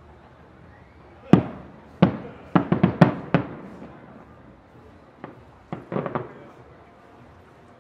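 Aerial firework shells bursting: one loud bang just over a second in, a quick volley of five or six bangs between two and three and a half seconds, then a few fainter cracks around five to six seconds, each bang trailing off with a short echo.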